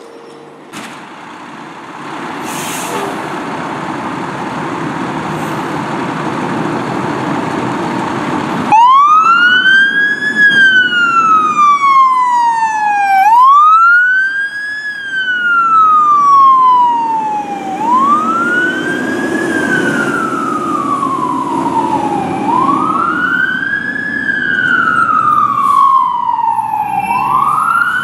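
Fire ladder truck responding: after a building engine rumble, a loud siren starts about a third of the way in, sounding repeated wails. Each wail rises quickly and then falls more slowly, about one every four to five seconds.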